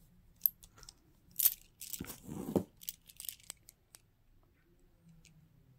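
Costume jewelry being handled: a scatter of small clicks and brief rustles over about four seconds, then quiet.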